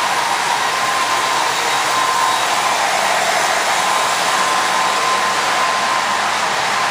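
MTH O-gauge CSX SD40-2 model diesel train with its intermodal flat cars running past on the layout track: a steady whirring rush with a faint steady whine through it.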